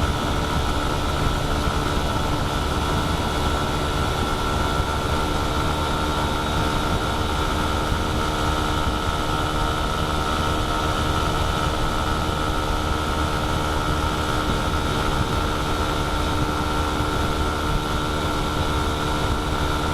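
A vehicle cruising at a steady speed on a highway: an even engine drone holding the same pitch, over continuous road noise.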